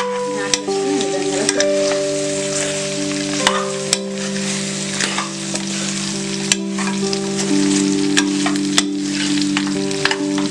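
Mutton pieces sizzling as they fry in hot oil and onion masala in a pot while being stirred, with sharp clicks of the spoon against the pot about once a second.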